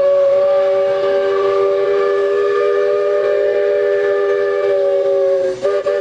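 A ship's steam whistle sounding one long blast, several tones together in a steady chord, faltering in short breaks near the end.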